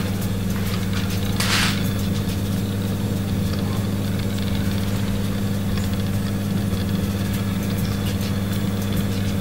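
Steady low electrical hum of running kitchen equipment, even in pitch and level, with a short soft hiss about one and a half seconds in.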